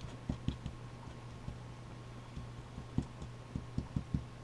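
Irregular light taps and knocks of small card-stock pieces and a glue pen being handled on a desk, over a steady low electrical hum.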